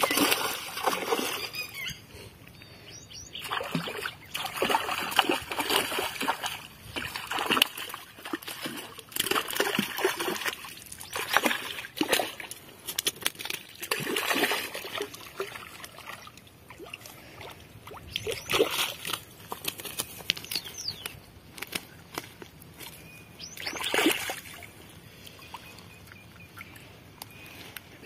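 River water splashing and sloshing in irregular bursts, a splash every few seconds.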